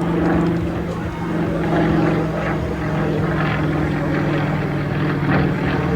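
Propeller aircraft's engine running steadily, a low droning note that shifts only slightly in pitch. It is a Yakovlev Yak-50/Yak-52 aerobatic plane's nine-cylinder radial engine.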